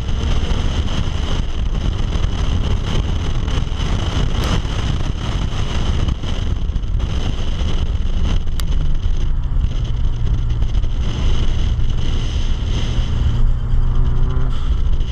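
Car engine at high revs under heavy wind and road noise, heard from inside the car on a track straight. About nine seconds in the engine drops to a lower steady note as the car slows for a corner, and near the end its pitch starts to rise again as it accelerates.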